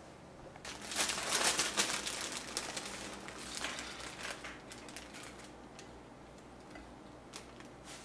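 Plastic bag crinkling and rustling as handfuls of pre-shredded cabbage are pulled out of it. It is loudest about a second in, then thins to scattered crackles.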